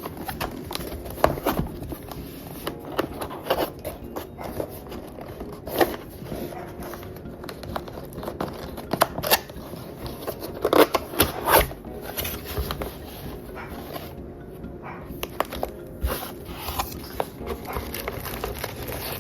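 Keyboard packaging being opened and handled: cardboard and plastic rustling and crinkling, with scattered clicks and knocks. The loudest knocks come in a cluster about eleven seconds in.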